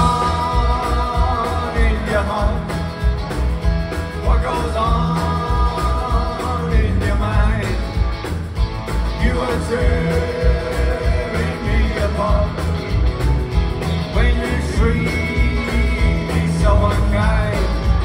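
Live rock band playing a country-flavoured rock song, with a lead vocal over electric guitars, bass and drums, heard loud through the crowd.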